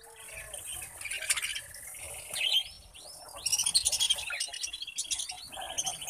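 A flock of budgerigars chattering and chirping. Near the end a caged songbird starts a fast, even trill.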